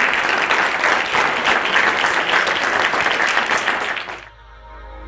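Audience applauding, a dense patter of many hands clapping that cuts off abruptly about four seconds in. Quiet ambient music with steady held tones then comes in.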